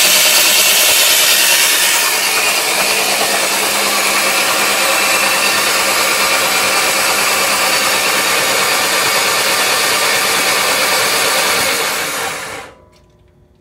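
Starter cranking a freshly built 2054cc air-cooled VW Type 1 stroker engine with its spark plugs out, a loud, even spin with no firing, to prime the oil system and build oil pressure. It cuts off about a second before the end.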